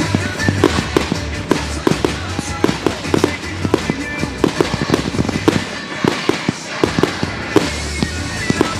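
Fireworks going off in quick succession, several sharp bangs a second, over pop music with a steady bass line.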